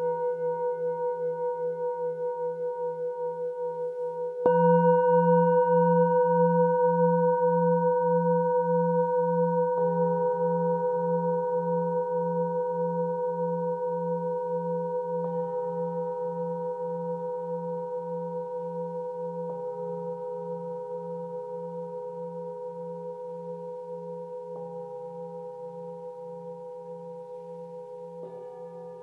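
Bronze singing bowls struck one at a time with a wooden mallet, six strikes about five seconds apart. Each tone rings on and overlaps the others with a slow wavering beat, and the strike about four seconds in is the loudest.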